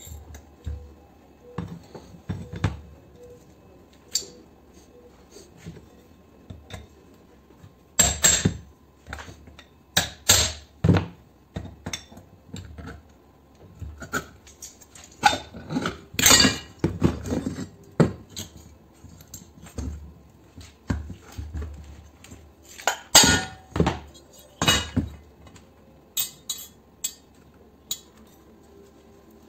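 Metal clanks, knocks and clinks as a pressure washer's electric motor is taken apart: the finned aluminium housing and copper-wound stator are pried, knocked and set down. The hits come irregularly, in loud clusters separated by quieter handling.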